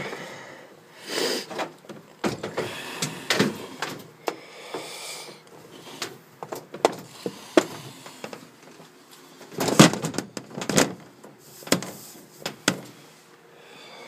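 Handling noise from the covered camera: rustling and scraping with scattered knocks and thumps at irregular intervals, the heaviest cluster about ten seconds in.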